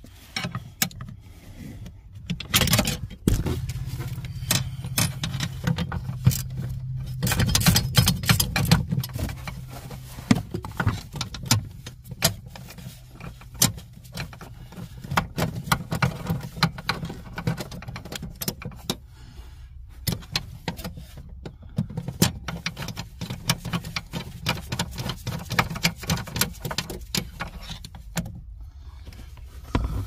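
Irregular metallic clinks, clicks and rattles as hand tools and gloved fingers work on the clutch pedal's metal pivot pin, spring clip and bracket under a car's dashboard. A low steady hum sits underneath from about three to twelve seconds in.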